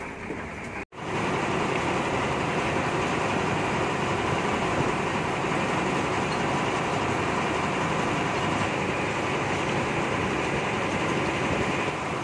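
Steady engine and road noise of a bus, heard from inside the cabin at the front while it drives. There is a brief dropout about a second in, and after it the noise is louder.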